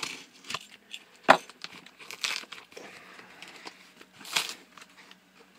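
Cardboard mailer box being worked open by hand: a sharp knock just over a second in, then two short tearing rasps, about two and four and a half seconds in, among lighter scraping.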